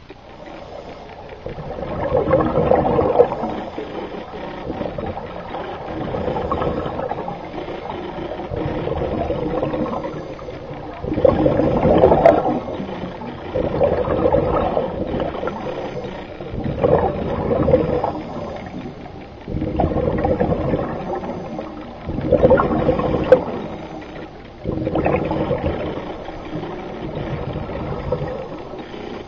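Muffled underwater bubbling and gurgling of scuba divers' exhaled air from their regulators, heard through a camera under water and swelling in surges every few seconds.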